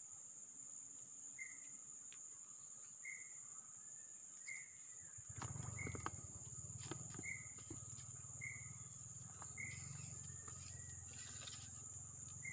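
Insects buzz steadily and high-pitched, with a short call repeating about every second and a half. From about five seconds in a low rumble and a few clicks join them.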